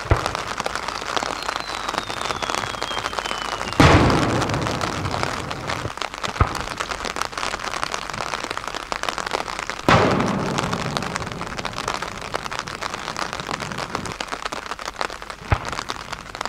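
Aerial firework shells going off: a faint falling whistle, then a loud boom that echoes away, another like it about six seconds later, and two shorter, sharper bangs, all over a steady crackle.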